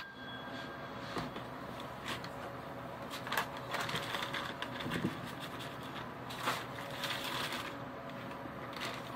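Plastic wrap crinkling and rustling as it is peeled off a metal mixing bowl, with a few louder crackles partway through.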